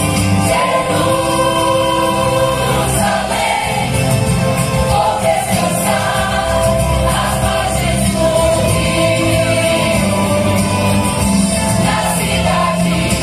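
A choir singing a gospel-style Christian song with instrumental backing through a stage sound system.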